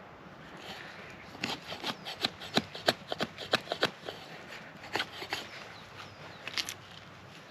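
Short, irregular scraping strokes of a Gerber Freeman folding knife worked against a hard surface. The strokes come quickly for a few seconds, then a few more follow, spaced apart.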